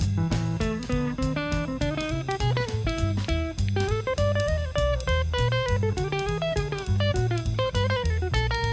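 Jazz band playing a tune: a bass line stepping from note to note under a melody line, with drum kit keeping time.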